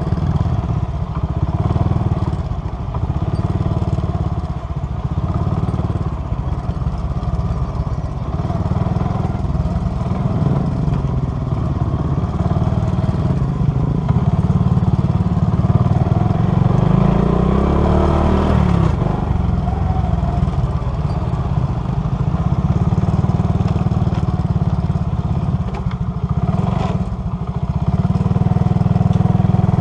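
Motorcycle engine running steadily under load on an uphill ride, with a low rumble throughout. About two-thirds of the way through, the engine note rises and then drops again.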